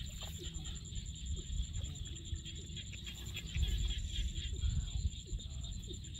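Hands digging and squelching through soft wet mud in shallow water, with small scattered splashes. A steady, faintly pulsing high-pitched tone and a low rumble run underneath.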